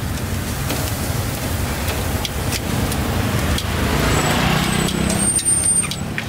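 Street traffic going by, a low rumble that swells about four seconds in as a vehicle passes close, with scattered clicks and a thin high squeal near the end.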